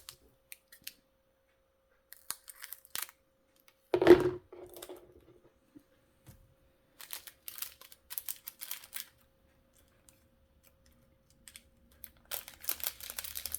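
A small plastic bag of diamond-painting drills being handled and cut open with scissors: short bursts of crinkling, snipping and rustling, with one louder knock about four seconds in.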